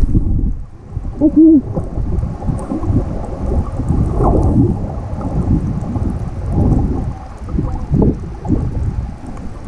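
Muffled underwater rumble and sloshing of water around a submerged action camera in wave surge, swelling and easing unevenly. A brief low hooting tone sounds about a second and a half in.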